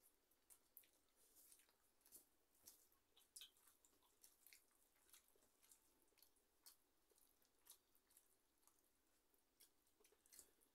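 Near silence broken by faint eating sounds: soft, irregular clicks and squishes, about one or two a second, of fingers mixing rice on steel plates, with chewing.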